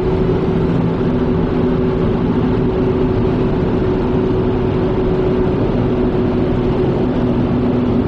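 Steady road noise inside a car at highway speed: an even rumble of tyres on the road with a constant, unchanging drone from the drivetrain.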